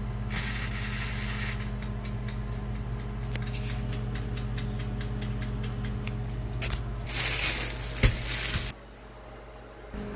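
Countertop toaster oven's mechanical timer knob being turned, ticking about four times a second over a steady electrical hum. Near the end there is a rushing hiss and a sharp click, and the hum cuts off suddenly.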